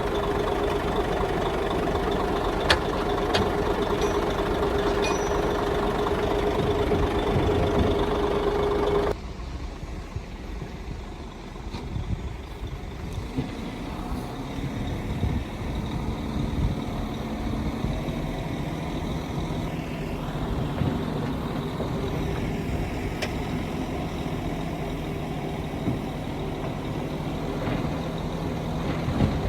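Heavy diesel engines of earthmoving machinery running steadily. A loud engine with a held tone drops off suddenly about nine seconds in to a quieter, lower engine sound.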